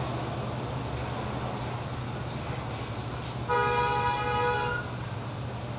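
A vehicle horn sounds once, a pitched honk lasting a little over a second about three and a half seconds in, over a steady low hum.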